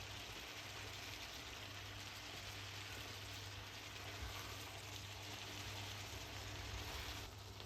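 Steady sizzling hiss of food cooking in a hot pan, with a low hum underneath; the hiss drops a little near the end.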